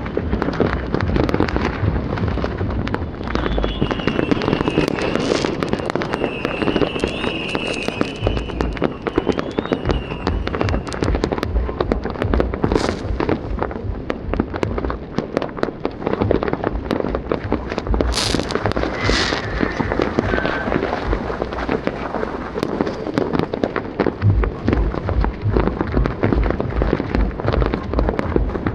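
Many fireworks going off at once: a dense, continuous crackling of bursts and bangs with low thuds underneath. A drawn-out whistle glides in pitch from about three to ten seconds in.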